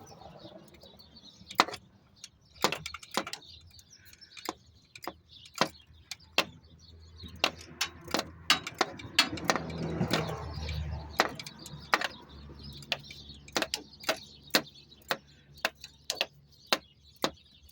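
Hand ratchet clicking in short strokes, driving a starter mounting bolt in: single sharp clicks, uneven at first, then about two a second in the second half, with some rustling and handling noise around the middle.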